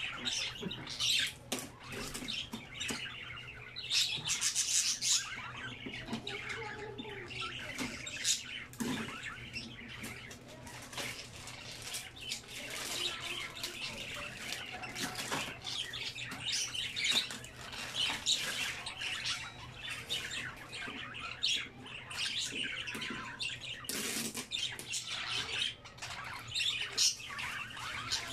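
Plastic wrapping crinkling and packing tape being peeled off a new Epson L1300 printer: many short, irregular crackles over a steady low hum.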